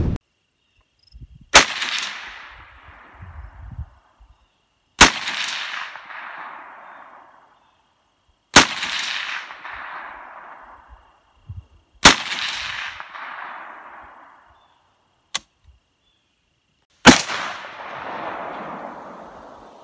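Five loud gunshots, one every three to four seconds, each trailing off in a long echo, with a fainter sharp crack between the fourth and fifth.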